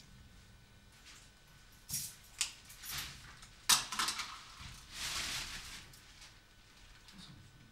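Metal parts of an Edison phonograph's reproducer mechanism clicking and clinking a few times, the loudest click about halfway, followed by a brief scraping sound.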